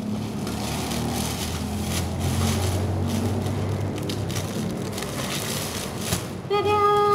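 Black plastic parcel wrapping rustling and crinkling as it is handled and its tape is cut with scissors, over a low steady hum. Near the end a loud steady tone sounds for about a second.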